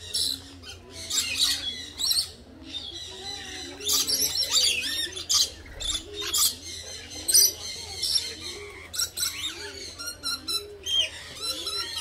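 Many parrots chirping and squawking together, short high calls overlapping one another throughout.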